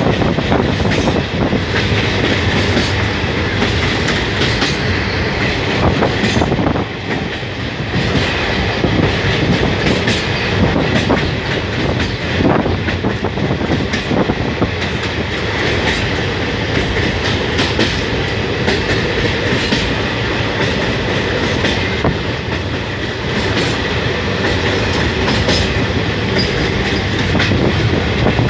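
Train running at speed, its wheels clattering over the rail joints above a steady rumble.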